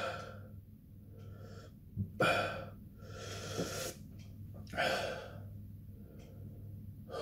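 A man breathing hard from the burn of extreme hot sauce: a sharp gasp about two seconds in, a long noisy exhale after it, and another heavy breath about five seconds in.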